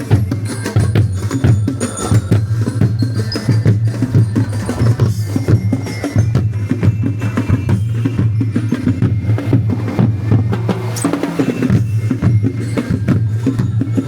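Loud percussion-driven music: drums and sharp wood-block-like clicks over a steady, held bass note.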